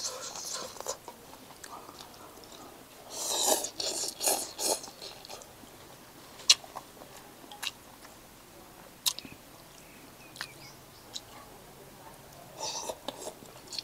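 A person eating noodles with chopsticks: two noisy slurps, one about three seconds in and one near the end, with chewing and a few single sharp clicks between.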